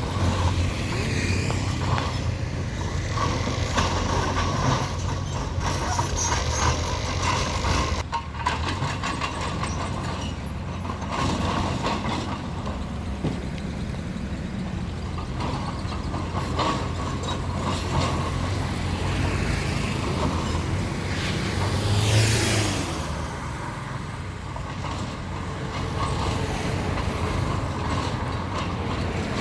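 Bulldozer's diesel engine running steadily under load, with the clanking and rattling of its steel tracks as it pushes dirt. About three quarters of the way through, the engine briefly gets louder and a high hiss sweeps up and back down.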